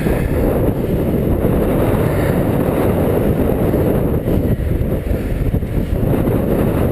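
Wind buffeting the microphone of a bike-mounted camera while cycling: a loud, steady low noise with no break.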